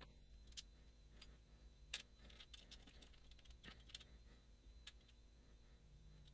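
Scattered small metallic clicks and taps, with a quick cluster about two to four seconds in, as the parts of a Mottura CP6 dimple lock and the tools are handled while it is taken apart. A low steady hum runs underneath.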